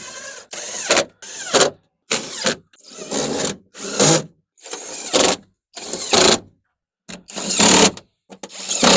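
Hand ratchet wrench being worked in strokes, about one a second, each stroke a quick run of pawl clicks, tightening the bolts of a door lock actuator.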